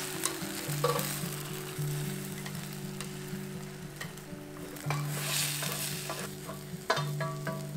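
Beaten egg sizzling in a hot rectangular tamagoyaki pan as it is stirred with chopsticks and folded with a spatula. A few sharp taps from the utensils hitting the pan.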